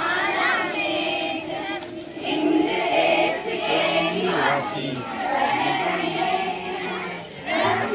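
A crowd of schoolchildren singing and chanting together in a marching procession, many young voices at once.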